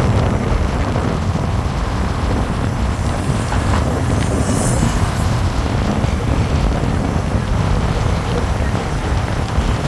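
Steady rumble of a vehicle moving through city traffic, with wind buffeting the microphone.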